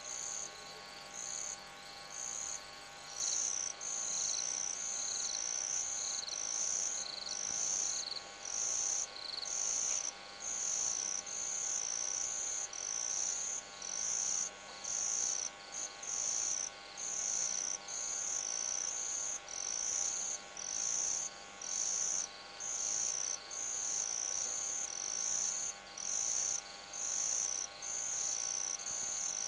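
Night insects, likely crickets, chirping in a steady high-pitched rhythm, about three chirps every two seconds, over a faint steady hum.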